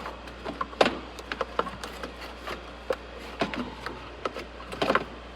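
Irregular clicks, taps and rubbing of plastic as a new air filter is handled into the airbox and the housing is closed up, with a faint steady hum underneath.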